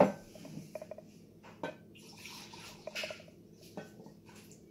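Liquor poured from a glass mason jar into a glass measuring cup: a short trickle of liquid about two seconds in, with light clinks of glass on glass and a sharper glass knock at the very start.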